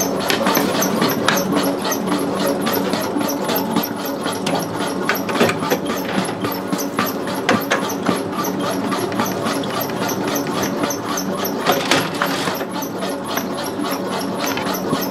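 A bakery machine's electric motor running with a steady hum and a fast, even clatter. It switches on just before and cuts off just after.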